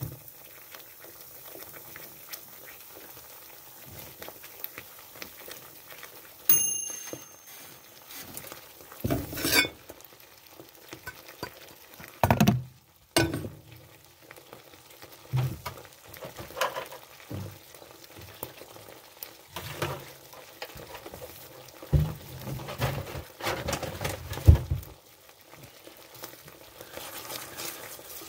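Meatballs cooking in a steaming pan on the stove, a steady sizzle and bubble, broken now and then by the knocks and scrapes of a utensil against the pan.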